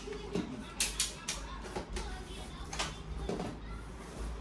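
Several short, sharp clicks and crackles from packaging being handled, over a steady low hum.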